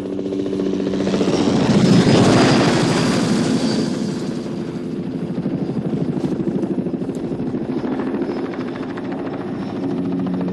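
Bell 206 JetRanger helicopter flying past, its rotor blades chopping rapidly over a steady engine tone. The sound swells to its loudest about two seconds in, then holds steady.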